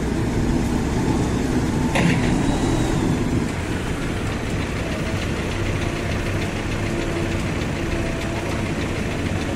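JCB 437 wheel loader's diesel engine running steadily, with a single sharp metallic clank about two seconds in.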